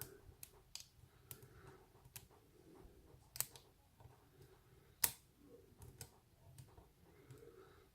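Faint, scattered metallic clicks and ticks of a hook pick working the pins of a lock cylinder under a tension wrench, with two sharper clicks about three and a half and five seconds in.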